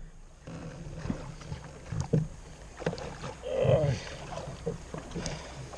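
Light knocks and handling noises on a fishing kayak, scattered through the stretch, with one brief louder low sound about three and a half seconds in.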